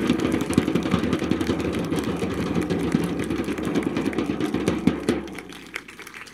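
Crowd applauding, a dense patter of many claps that dies away about five seconds in.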